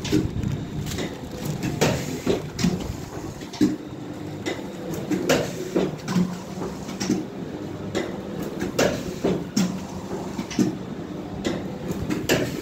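Pusher-system sachet packing machine running, with a steady hum and a sharp knock from the sealing and cutting stroke roughly once a second as each washing-powder packet is cut off.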